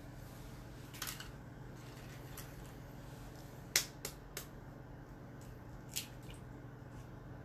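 Eggs being cracked by hand over a plastic measuring jug: a few short, sharp eggshell cracks, the loudest about four seconds in, followed by two smaller ones. A faint, steady low hum runs underneath.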